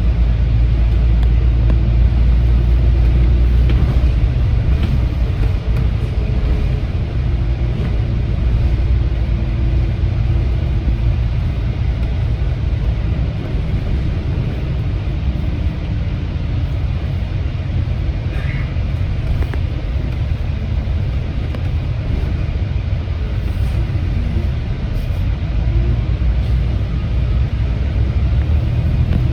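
Steady low rumble of a city bus under way: engine and road noise.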